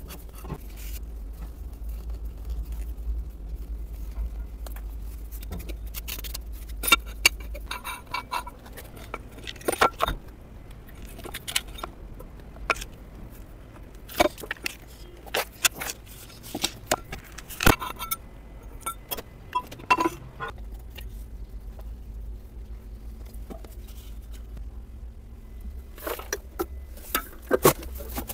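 Plastic pipe, fittings and a repair coupling knocking and clicking as they are handled and slid together: a string of sharp separate clicks and clunks at irregular intervals, over a low steady rumble.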